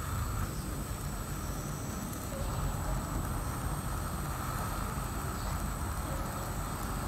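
Steady outdoor background rumble coming in through an open balcony door, with a faint high steady tone over it.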